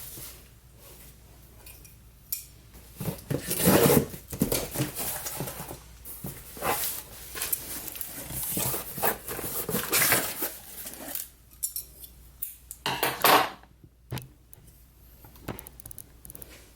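A cardboard box being opened and its contents handled: irregular knocks, scrapes and clinks of hard items, loudest a few times in bursts.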